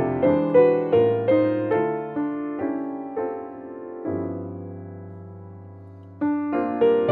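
Solo grand piano being played: a flowing line of notes over chords, then about four seconds in a chord is struck and left to ring, fading for about two seconds before playing picks up again with a fresh chord.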